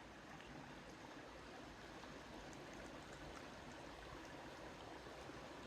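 Creek running high with spring snowmelt runoff: a faint, steady rush of flowing water.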